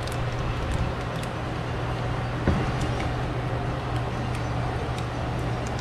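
Light plastic clicks and handling noises from trying to push an electrical connector onto a new EVAP purge solenoid, with the connector not seating, over a steady low hum. The most distinct click comes about two and a half seconds in.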